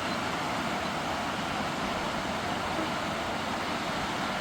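Steady outdoor background noise, even and unbroken, with no distinct events.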